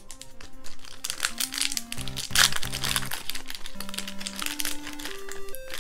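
Foil trading-card booster pack crinkling as it is handled and opened, mostly from about a second in until near the end. Under it runs 8-bit lofi background music.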